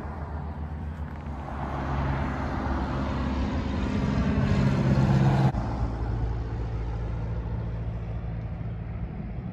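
Engine drone of a small plane flying low overhead on its landing approach, growing louder as it comes over. About five and a half seconds in it breaks off suddenly and a steadier, lower drone takes over as the plane descends toward the runway.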